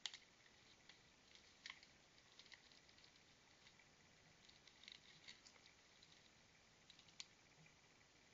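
Raccoon clinging to and clawing at a tube bird feeder on a tree trunk: faint, scattered clicks and scrapes of its claws on the feeder and bark, a few sharper clicks among them.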